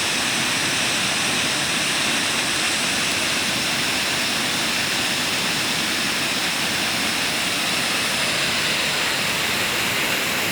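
Steady rushing roar of Devi's Falls, water plunging into its gorge, an even hiss-like rush with no breaks.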